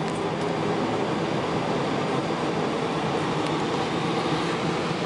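Steady flight-deck noise inside an Airbus A340-300 on the ground before takeoff: an even rush of air with a constant low hum running underneath.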